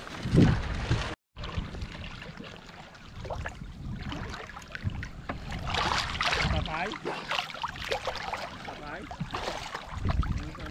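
Water slapping and splashing around a small wooden fishing boat, with wind buffeting the microphone. There is a loud thump about half a second in, and the sound drops out completely for a moment just after a second in.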